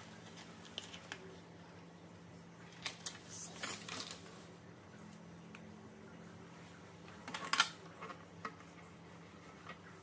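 Thin printed card being folded and creased by hand on a scoring board: faint taps and rustles, with short, louder scrapes about three seconds in and again about seven and a half seconds in. A low steady hum runs underneath.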